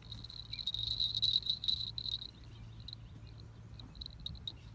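An insect trilling: a high, steady trill for about two seconds, which then breaks up into short chirps.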